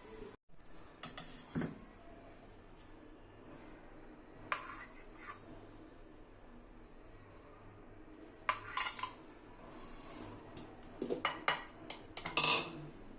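Metal kitchen utensils clinking: a spoon knocking and scraping against a steel bowl or pan in several short clusters, with quiet gaps between.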